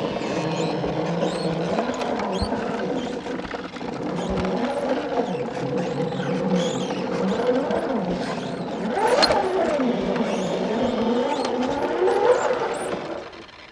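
Electric drive of a scale RC crawler truck, a Novak 18.5 motor through an Axial transmission and transfer case, whining as it crawls. Its pitch rises and falls with the throttle, climbing highest about nine seconds in.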